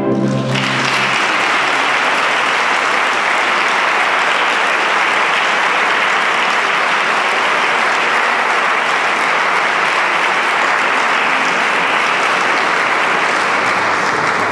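The final chord of the choir and wind band cuts off about half a second in, and the audience breaks into steady applause.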